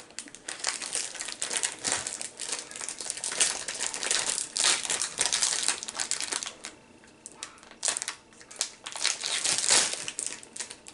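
A plastic Peeps candy packet crinkling as it is handled and opened, in irregular bursts with a short lull about seven seconds in.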